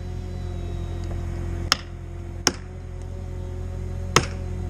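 Three sharp, separate blows of a striking tool on felling wedges in the back cut of a tree, driving them in to lift the tree toward its fall. A steady low hum runs underneath.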